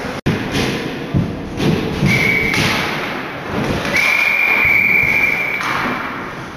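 Ice hockey rink noise with low thuds. A referee's whistle sounds twice, first briefly and then in one longer steady blast.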